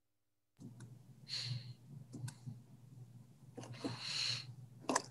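A microphone switching on after dead silence, about half a second in, then picking up a steady low electrical hum, several sharp mouth or desk clicks, and two breaths.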